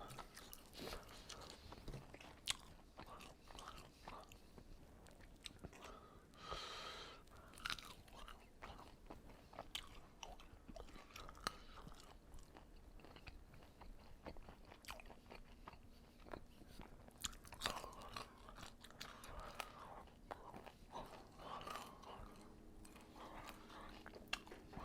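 Quiet close-miked chewing and lip smacking while eating chicken wings, with many small wet clicks from the mouth.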